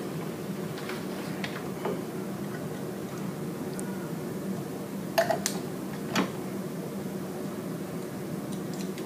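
Handling clicks and knocks from a ripple tank's wave generator unit and its small attachments being set on the tank's glass top: a few faint ticks, then two sharp clicks close together about five seconds in and a duller knock a second later, over a steady low hum.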